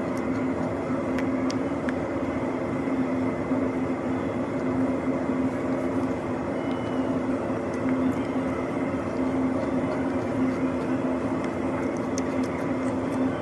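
Steady drone of running machinery: a constant low hum with a thin, fainter high whine above it. Near the end come a few faint crisp crunches as raw red bell pepper is bitten.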